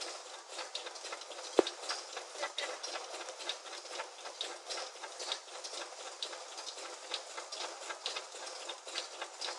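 Irregular small clicks and taps, several a second, over a steady hiss, with one sharp knock about a second and a half in.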